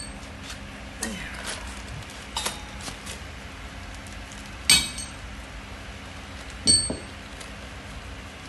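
Bolts and washers in a plastic hardware bag clinking as hands pick them up and handle them. There are a few sharp metallic clinks, the loudest about halfway through, and one near the end has a brief ring.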